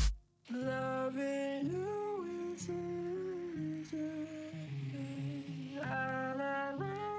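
Background music: a slow melody of long held notes that slide from pitch to pitch. It comes in after a brief silence about half a second in.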